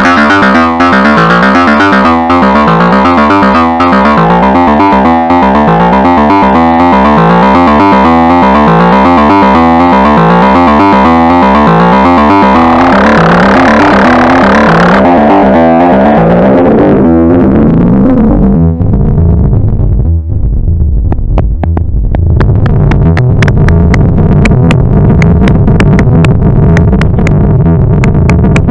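Arturia MicroBrute analog synthesizer playing a fast, repeating sequenced chiptune-style pattern. About halfway through, the tone turns buzzier and the top end closes down. Near the end it gives way to a low bass drone with rapid high ticks over it.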